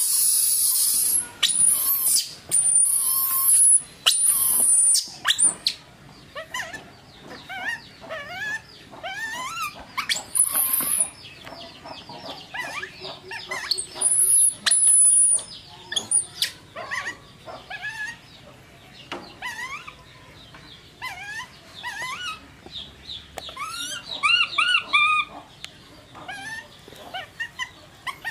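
A baby macaque screaming shrilly over and over in the first five or six seconds, then many short squeaky chirps that rise and fall in pitch, scattered through the rest.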